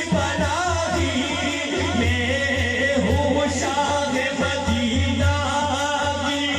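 Man singing a naat into a microphone through a sound system: long, wavering, ornamented held notes, with a low pulsing hum underneath.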